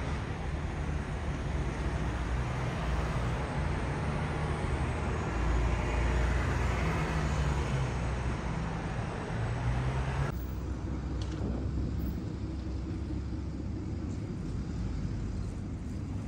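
Steady outdoor traffic noise with a low hum underneath. About ten seconds in it cuts off abruptly to quieter open-air ambience.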